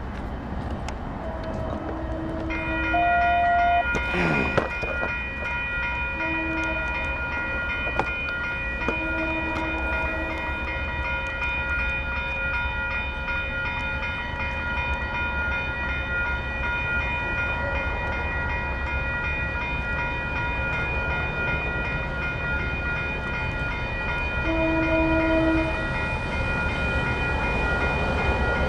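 Double-headed diesel locomotives (an EMD GP9 and a GP38-2) rumble through a grade crossing, sounding several chord-horn blasts of varying length. Over them an electronic crossing bell rings steadily from a few seconds in.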